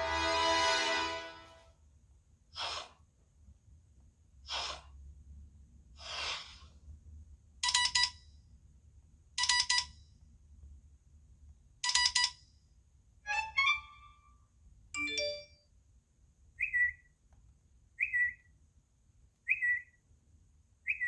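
iPhone 11 Pro ringtones and alert tones played one after another. A swelling chord fades out about two seconds in. Then come three short whooshes, three bell-like chimes about two seconds apart, a quick run of notes, and short chirps repeating about every second and a half.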